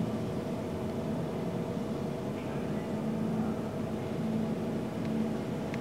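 Cessna 150's four-cylinder Continental O-200 engine and propeller running steadily at low taxi power as the light plane rolls along the taxiway.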